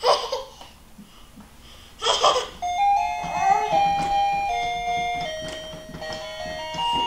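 Electronic tune from a toddler's ride-on toy car, a simple melody of plain beeping notes stepping up and down in pitch, starting a little under three seconds in. Before it, two short loud bursts of sound, one at the start and one about two seconds later.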